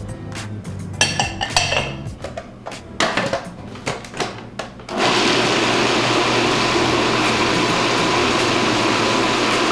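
Electric food processor running steadily, chopping carrots, celery, red pepper and zucchini; the motor starts about halfway through and cuts off at the end. Before it starts there is a series of knocks and clatters as the vegetables are dropped into the plastic bowl.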